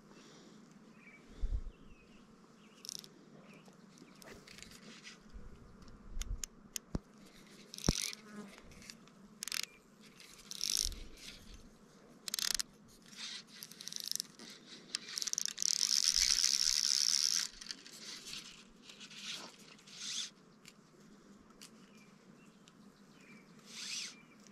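Fly reel's drag ratcheting in a string of short high buzzing bursts as the drag is adjusted, with one longer run of about two seconds past the middle. A few dull handling knocks come in between.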